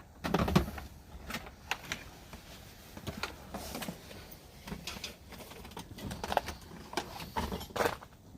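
Irregular knocks, clicks and rustling of stored belongings being handled and shifted about.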